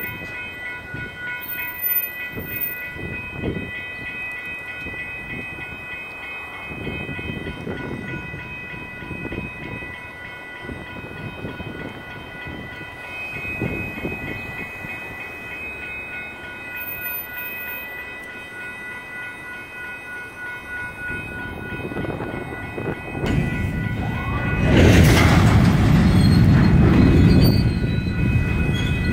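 Electronic railroad crossing bells ringing steadily over the low rumble and knocks of a slow freight train of covered hoppers rolling through the crossing. Near the end the rolling noise of the cars grows much louder.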